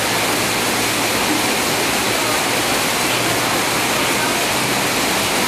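A steady, even rushing noise with a faint low hum beneath it.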